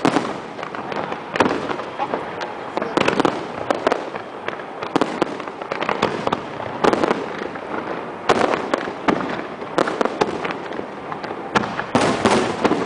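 Aerial fireworks going off in quick succession: repeated booms and bangs over continuous crackling, with a dense cluster of bursts near the end.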